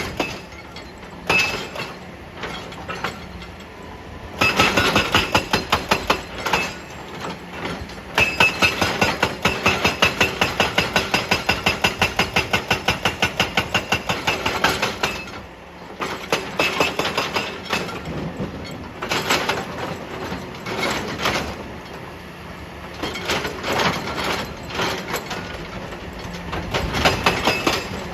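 Excavator-mounted hydraulic breaker hammer pounding rock in several runs of rapid, evenly spaced blows, with pauses between runs in which the machine's engine runs.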